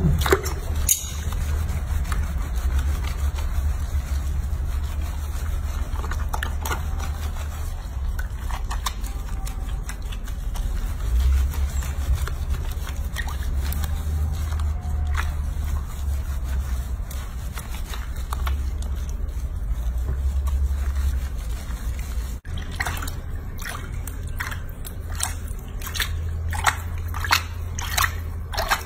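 Water sloshing and dripping in a basin as hands rub and wash a baby monkey's wet fur, over a steady low hum. After a break about three-quarters of the way in, the drips and small splashes come quicker and sharper.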